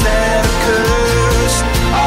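Background music, a rock or pop track with a steady beat and a melodic lead line.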